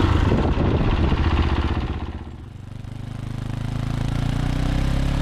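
Fantic Caballero 500's single-cylinder engine running. It drops in level a little over two seconds in, then builds back up.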